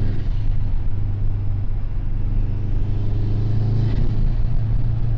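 Bugeye Subaru WRX's turbocharged 2.0-litre flat-four running steadily while driving, a constant low drone. It runs smoothly with no hiccups, the misfire cured by a new coil pack.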